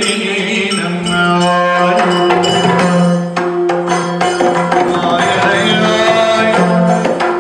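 Yakshagana background music: a singer chanting a verse over a steady drone, with maddale and chande drums struck throughout.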